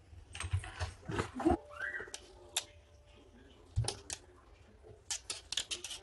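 A cat scrabbling and pawing: irregular sharp clicks, taps and scratches of claws, with a rapid flurry near the end and a brief high squeak about two seconds in.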